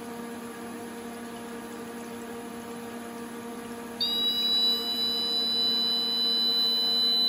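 Steady electrical hum from the Hurco 425e spark erosion machine; about four seconds in, its edge-find buzzer comes on suddenly and holds a continuous high-pitched electronic tone, signalling that the electrode has touched the edge of the workpiece.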